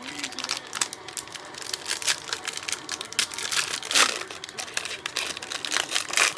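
Crinkling and rustling of trading card packaging being opened and handled: a dense run of quick crackles, loudest about four seconds in.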